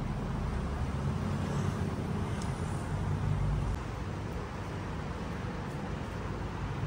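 Steady low rumble of city street noise, like traffic and engines, growing slightly quieter about four seconds in.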